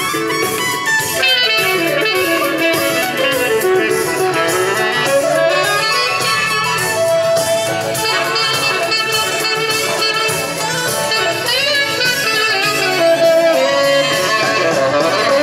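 Tenor saxophone fitted with a Barkley MS8 mouthpiece and Rico Royal reed, played through a microphone and PA during a soundcheck: a melodic line whose notes slide up and down in pitch, over accompanying music.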